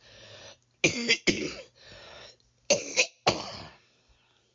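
A woman coughing in a short bout: two pairs of harsh coughs, each pair after a breath in, the second pair about two seconds after the first.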